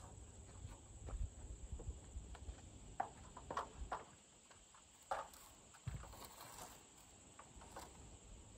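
Faint, irregular wooden knocks and clacks as a lumber brace board and a stepladder are handled and climbed on a timber swing-set frame. A low rumble runs underneath.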